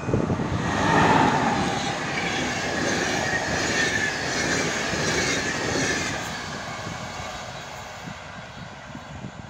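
Electric-hauled passenger train, an X4E (Siemens Vectron) locomotive with its carriages, passing at speed: a dense rush of wheels on rail, loudest about a second in, then fading steadily as the carriages run away.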